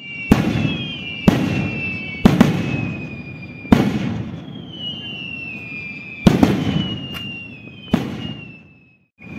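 Daytime aerial rockets bursting overhead: six sharp bangs at uneven gaps of one to two and a half seconds, each trailing off in a rolling echo. A thin high whistle falls slowly in pitch underneath.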